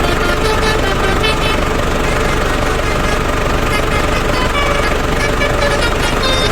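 Telolet basuri multi-tone truck horn playing a tune in short notes of changing pitch, over a steady low engine rumble.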